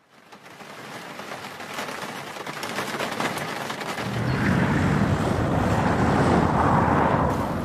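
Rain ambience fades in from silence and builds, with scattered thin ticks like falling drops. About halfway a low rumble joins and the whole swells louder.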